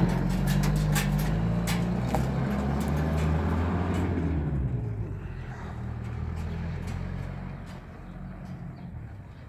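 Pickup truck engine running as the truck drives away, its low drone fading out over the second half, with a few sharp clicks in the first four seconds.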